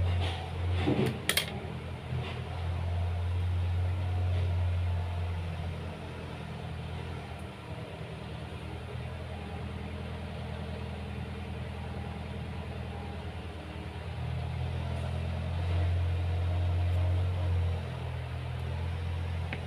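A steady low hum of a motor or machine, swelling and easing a little in loudness, with a sharp click a little over a second in.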